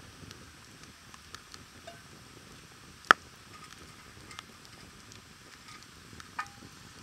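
Wood campfire of tangerine-tree logs crackling in a stone fire pit: a steady hiss with scattered small pops and one loud crack about three seconds in.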